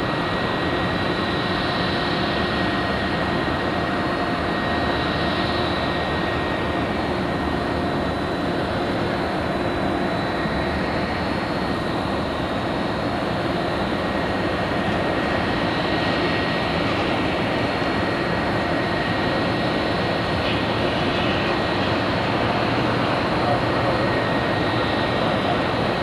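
Boeing 737-300's CFM56 turbofan engines at takeoff thrust during the takeoff roll: a steady jet rush with a thin high whine, growing a little louder near the end.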